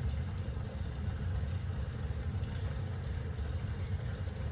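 Steady low machine hum from a running motor, even and unbroken.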